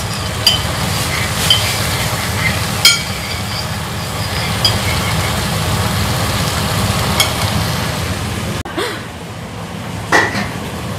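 Chicken stir-frying in a wok, with a metal spatula clinking against the pan about five times, over a steady low hum.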